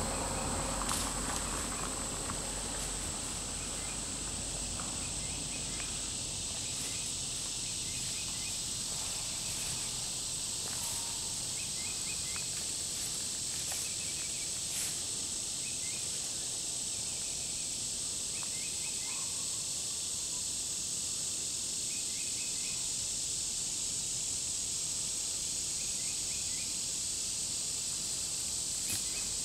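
Steady, high-pitched drone of an insect chorus from the surrounding summer woods. Short clusters of chirps sound every few seconds, with a few faint rustles and clicks.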